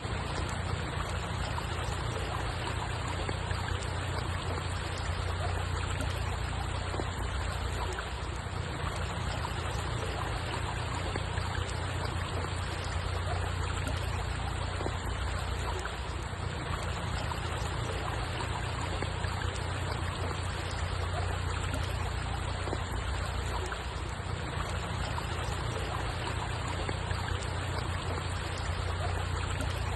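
Steady flowing water, an even rushing hiss with a strong low rumble underneath and no breaks.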